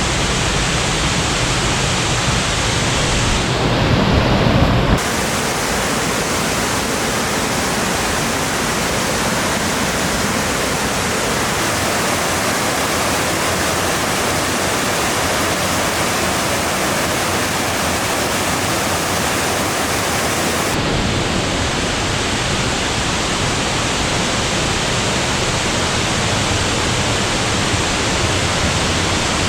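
Fukiware Falls: a broad waterfall's water pouring steadily and loudly, a constant even rush. It swells with a louder low rumble for a second or so about four seconds in.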